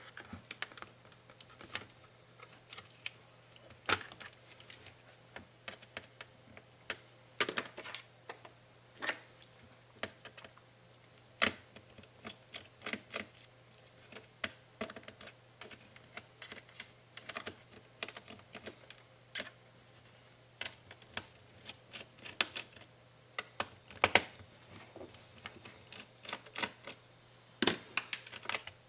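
Irregular small clicks, taps and rattles of a laptop being taken apart by hand: plastic chassis, circuit board, cables and a small screwdriver knocking and snapping as parts are worked loose, a few louder knocks among them. A faint steady low hum runs underneath.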